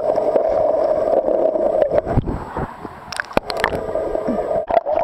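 Muffled water gurgling and sloshing as heard by a camera held under the river's surface, with a few sharp knocks about three seconds in and again near the end.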